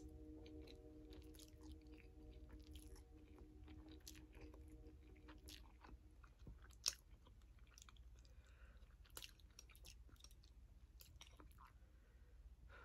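Faint chewing of instant noodles, with small mouth clicks throughout and one sharper click about seven seconds in.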